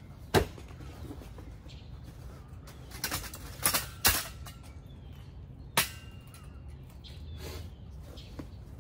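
Camera and lighting gear being handled and unpacked: a handful of sharp clacks and knocks at irregular moments, over a low steady hum.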